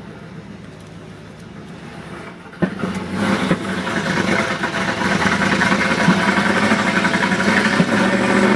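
LT1 5.7-litre V8 in a Pontiac Firebird Formula running quietly, then a knock about two and a half seconds in and the engine comes under throttle and runs loud, its pitch hardly rising: the revs hang and the engine stumbles with an undiagnosed misfire that throws no codes.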